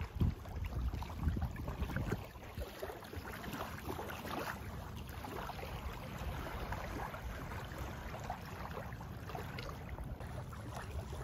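Small waves lapping and splashing at a lake's edge, with wind buffeting the microphone in the first couple of seconds.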